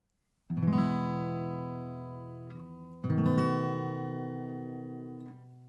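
Acoustic guitar music: a strummed chord about half a second in and another about three seconds in, each left to ring and slowly fade.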